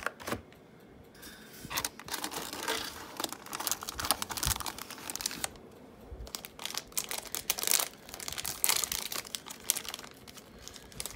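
A HeroClix foil booster pack being torn open and crinkled by hand, crackling in two long runs with a short pause about halfway.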